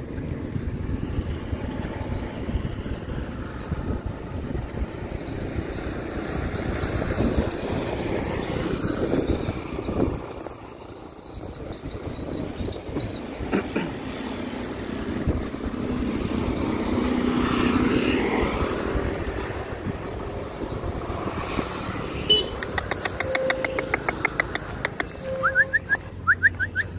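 Wind rumbling on the microphone outdoors, steady with a brief lull partway through. Near the end, a quick run of sharp clicks.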